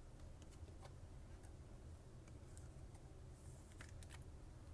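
Near silence: low room hum with a few faint, scattered ticks.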